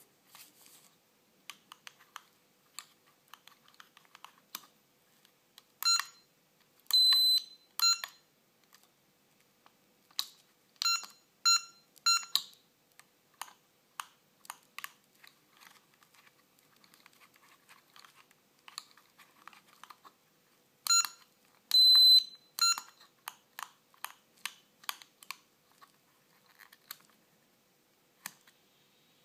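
A small toy quadcopter's handheld transmitter: its plastic sticks and trim buttons click and tap under the thumbs, and its buzzer gives short electronic beeps in three clusters of about three, one of them held a little longer in two of the clusters.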